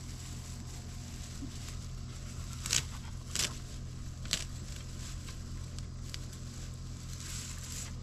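Rice paddy herb stems being cut during harvest: three crisp snips about a second apart near the middle, with light crackling of the handled stems over a steady low hum.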